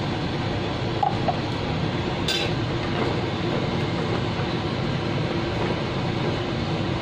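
A spatula scraping and clinking against a coated wok while a curry is stirred: two short squeaks about a second in, then one sharp clink a little after two seconds, over a steady low rush of kitchen noise.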